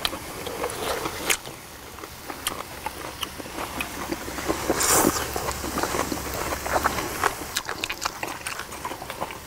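Close-miked mukbang eating sounds: chewing, lip smacks and small wet clicks. A louder bite and slurp comes about five seconds in, as a mouthful of seasoned greens goes in.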